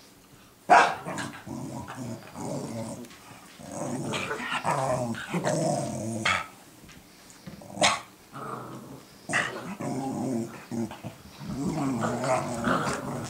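Two puppies growling at each other in play, long rough growls broken by sharp barks; the loudest bark comes about a second in, with a few more barks around the middle.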